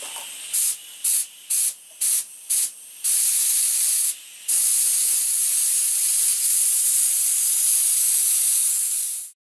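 Compressed air hissing out of a gravity-feed spray gun, blowing dust off freshly painted plastic before the next coat. Five short blasts about half a second apart, then a long continuous blast that cuts off suddenly near the end.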